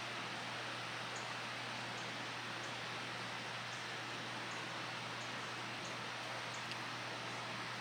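Steady outdoor hiss of ambient air and wind, with faint, short, high chirps repeating about every second.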